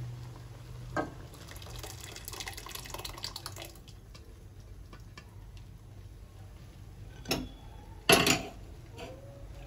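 Cooked dal tipped from a steel pressure cooker into a pan of simmering spinach, sliding and splashing in with soft scrapes and clinks. There is a knock about a second in and two louder metal clanks near the end.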